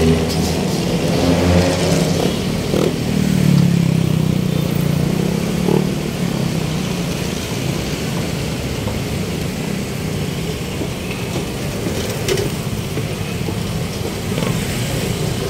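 Street traffic: engines of passing vehicles, loudest in the first six seconds, then a steady traffic hum.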